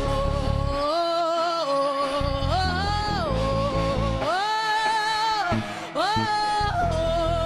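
Gospel worship music: a solo voice sings long held notes with vibrato, stepping up and down in pitch, over a low bass accompaniment that drops out for short stretches.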